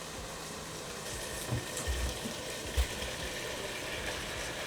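Pan of tomatoes, garlic and cooked chicken thighs sizzling on the stove, with a few dull knocks of the pan or utensil near the middle.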